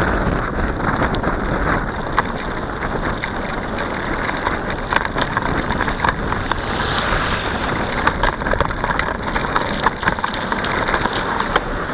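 Bicycle being ridden: a steady rush of wind and tyre noise with frequent small clicks and rattles from the bike.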